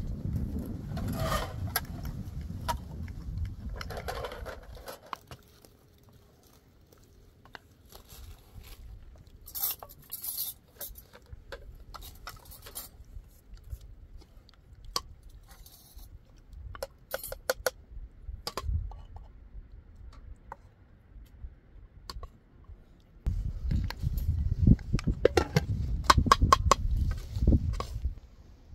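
Irregular clicks, clinks and scrapes of objects being handled, with a low rumble during the first few seconds and again near the end.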